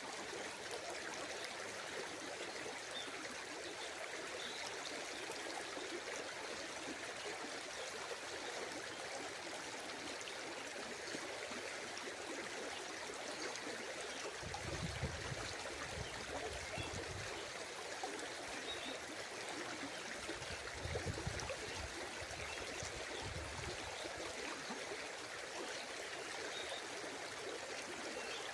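A stream running steadily, with two spells of low rumbling: one about halfway through and another a few seconds later.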